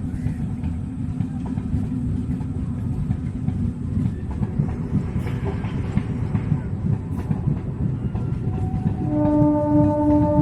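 Train running on the tracks with a steady low rumble, then a train horn sounds a long steady blast starting about nine seconds in.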